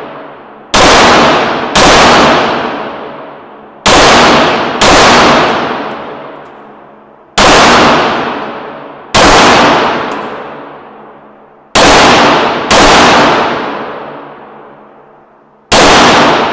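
9mm Beretta 92FS pistol fired nine times at an uneven pace, some shots in quick pairs about a second apart, each shot followed by a long echoing decay.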